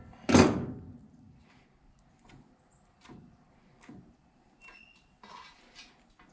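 Tools and parts being handled on a workbench: a loud knock just after the start, as of something set down, then light clicks and taps and a brief rustle near the end.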